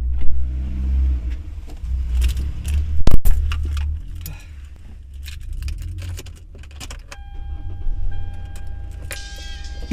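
A person getting into a car: rustling, keys jangling, and the car door shut with a loud thud about three seconds in. About seven seconds in a steady high tone sounds, and music starts near the end.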